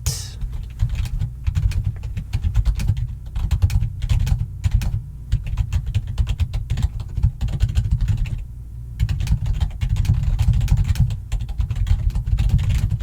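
Fast, continuous typing on a computer keyboard: many sharp key clicks, each with a low thump, broken by a short pause about two thirds of the way through.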